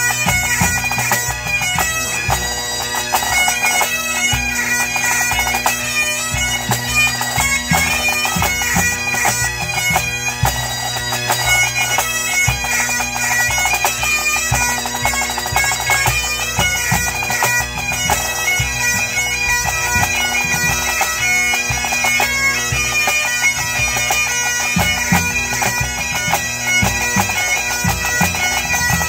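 Pipe band playing a medley: Great Highland bagpipes, with a chanter melody over steady drones, accompanied by snare drums and bass drum.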